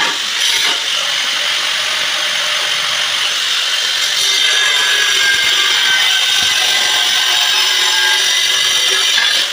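Handheld angle grinder cutting through a floor tile: a loud, steady, high-pitched grinding whine, the disc biting into the tile throughout.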